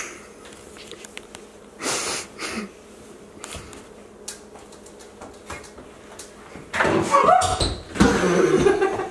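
A paper napkin swiped across a granite countertop in a couple of brief rubbing strokes, then a person's muffled, stifled laughter near the end.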